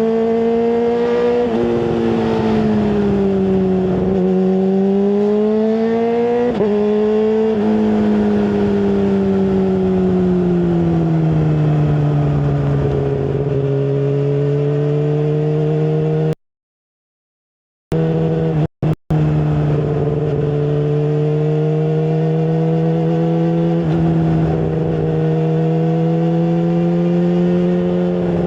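Tuned Yamaha R6 inline-four motorcycle engine with a full exhaust running at steady revs, its pitch rising and falling slowly with the throttle. The sound cuts out completely for about a second and a half a little past the middle, then twice more very briefly.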